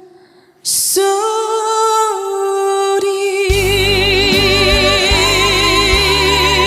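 Music fades out and a new passage starts just under a second in with a short burst of hiss, then a held, wavering melody line; bass and fuller accompaniment join about three and a half seconds in.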